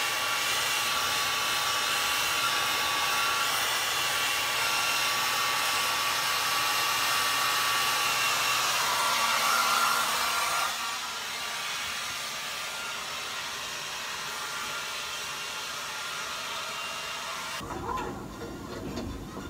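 Hand-held hair dryer blowing steadily, a rushing air noise with a thin whine from its motor; a little past halfway it drops to a quieter, thinner hiss. Near the end the sound switches to a television playing.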